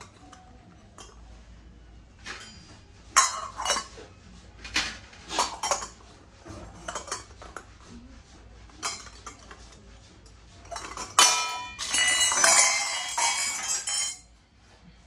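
Metal kitchen utensils, likely brass, being handled and knocking together: a string of separate clinks and knocks, then about three seconds of dense clattering with a metallic ring near the end.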